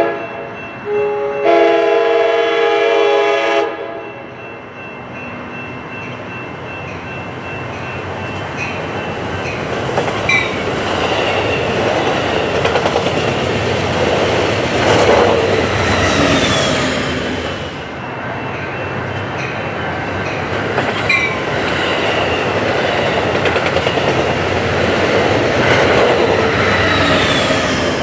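Amtrak passenger train sounding its horn, a short blast and then one held for about two seconds, then rushing past with steady rolling wheel noise over the rails, with occasional clicks and a few brief falling wheel squeals.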